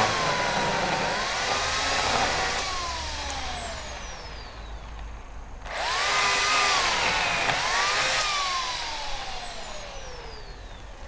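Electric chainsaw with an 18-inch bar cutting a silver maple: the motor whines at full speed, dips and picks up again, then winds down in a long falling whine when the trigger is let go. It starts again abruptly about six seconds in and goes through the same dip and wind-down.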